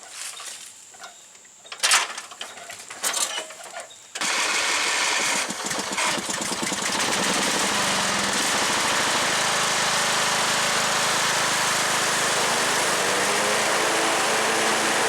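A few knocks and clicks, then about four seconds in the Craftsman engine of a Poulan riding mower starts up. It wavers for a couple of seconds, then settles into a steady run.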